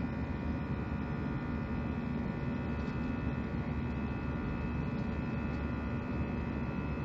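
Airbus A319's wing-mounted jet engine heard from inside the cabin, climbing out after takeoff: a steady low drone with several thin, steady whining tones over it.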